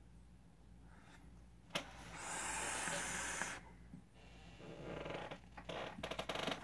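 A person blowing out a big cloud of e-cigarette vapor in one long, hissing exhale, starting about two seconds in after a single click, followed by softer, uneven breaths.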